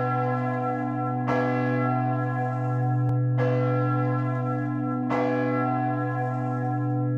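A single large church bell swinging, its clapper striking about every two seconds. The deep hum of each stroke rings on into the next.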